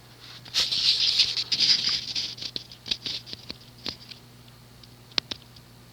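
Hunter/Robbins & Myers Original ceiling fan running on low with its blades in the steeper updraft pitch, a steady low motor hum. For the first couple of seconds it is overlaid by a scratchy rustling, and a few sharp clicks come later.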